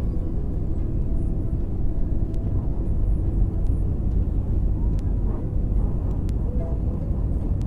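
Jet airliner's engines at takeoff thrust heard from inside the cabin: a steady, deep roar as the plane lifts off the runway and climbs.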